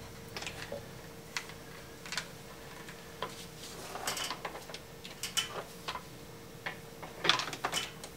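American Flyer No. 2 toy train transformer humming steadily just after being plugged in: it is live and powering up, a good sign. Scattered light clicks and taps sound over the hum, with a cluster near the end.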